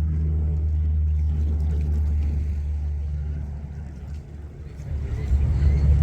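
Steady low engine drone that fades briefly about four seconds in, then swells louder again near the end.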